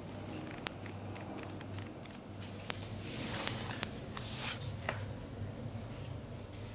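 Hands pressing and rubbing over cloth-covered legs during a massage: fabric rustling and swishing, loudest a few seconds in, with a few light sharp clicks.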